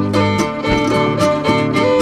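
Background music: an instrumental track with a string melody over a steady beat.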